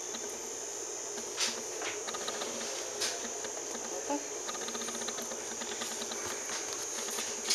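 A few light clicks and rubbing from hands fitting the pressure valve and handling the lid of an electric pressure cooker, over a steady high-pitched whine. The clicks come at about one and a half, three and four seconds in.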